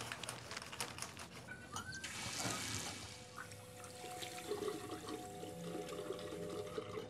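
Water running in washroom plumbing: a hissing rush swells about two seconds in, then settles into a steady flow with a faint hum under it.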